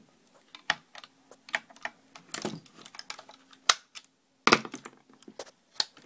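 Small hammer tapping a pin punch to drive out the front takedown pin of an airsoft M4 body: an irregular string of sharp metallic taps and clicks, about six of them louder than the rest.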